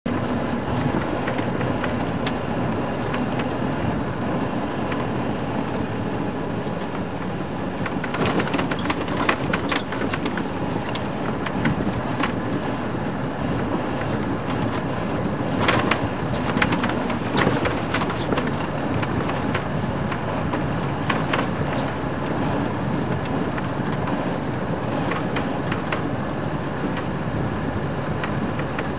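Open game-drive vehicle driving along a bumpy dirt track: steady engine and road noise, with scattered rattles and knocks as it goes over bumps.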